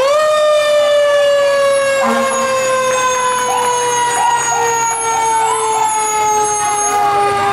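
Fire truck siren winding up fast, then its pitch falling slowly and steadily as it winds down; about two seconds in, a second wailing tone joins it.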